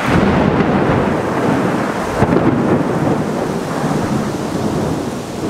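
Thunder rumbling over heavy rain in a storm, loud at first and slowly fading.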